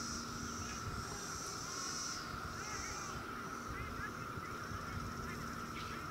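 Outdoor ambience with birds: short chirps over a steady high-pitched hum that swells and fades in stretches of about a second, with wind rumble on the microphone.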